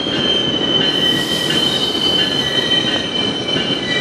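GO Transit bilevel passenger coaches rolling past close by, the wheels rumbling on the rails with a steady high-pitched wheel squeal; a second, lower squeal joins near the end.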